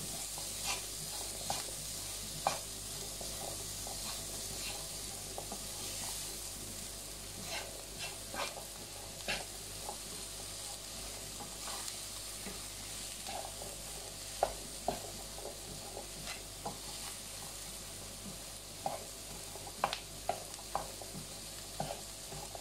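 Spice masala and chopped onion sautéing in a pan, a steady sizzle while the onion softens, with irregular clicks and scrapes of a utensil stirring against the pan.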